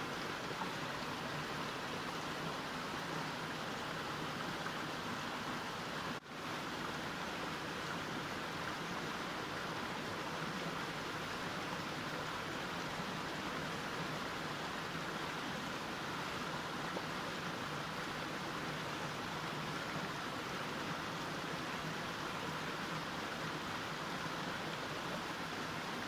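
Mountain stream flowing steadily, an even wash of running water. About six seconds in the sound drops out for an instant.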